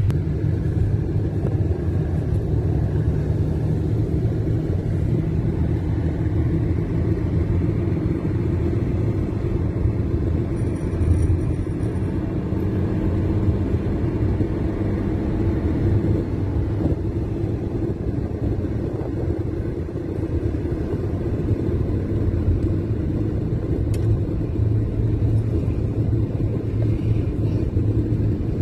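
Steady low rumble of a car moving at road speed, heard from inside the cabin: tyre and engine noise.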